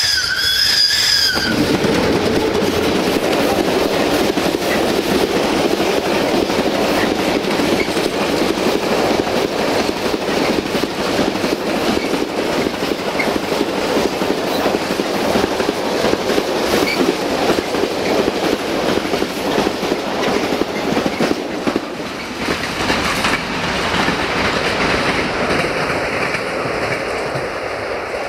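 A high-pitched whistle from a CFR 060-DA (LDE2100) diesel-electric locomotive, cut off about a second and a half in. Then a loaded freight train's open wagons roll past close by with a steady clickety-clack of wheels over rail joints, easing off a little near the end as the train moves away.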